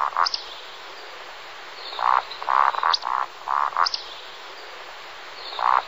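Animal calls repeated in short runs, with a few brief high chirps among them and a steady hiss behind.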